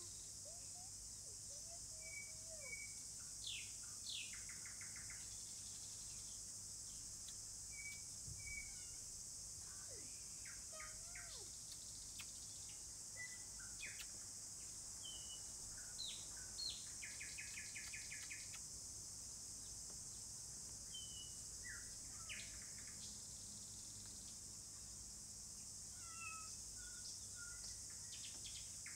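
A steady, high-pitched chorus of insects, with birds chirping now and then in short whistled notes and a few rapid trills.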